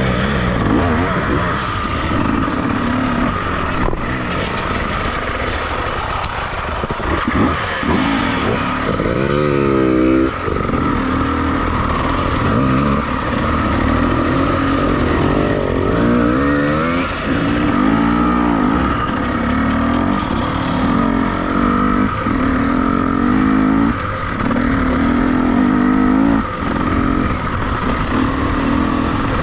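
An off-road vehicle's engine running and revving, its pitch rising and falling several times.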